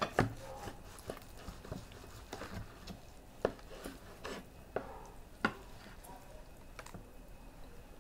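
Scattered light clicks and taps of cutlery and dishes, irregularly spaced, with a couple of sharper knocks about three and a half and five and a half seconds in.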